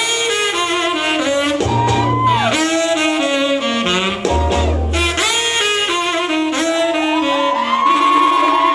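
Instrumental music playing for a stage dance routine. The lead melody slides and bends in pitch over a couple of short low bass notes, then settles into long held high notes near the end.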